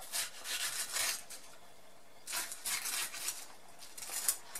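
Kitchen knife cutting through a red bell pepper onto a plastic cutting board: crisp slicing strokes and light taps of the blade on the board, in short runs with pauses between them.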